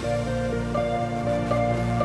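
Live indie-pop band in a quiet passage: held electric keyboard chords over a low bass line, changing note a few times, with no drums.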